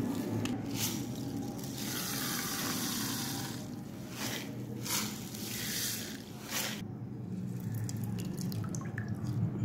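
Liquid poured in a thin stream into a bowl of water, splashing and trickling on the surface in several separate spurts.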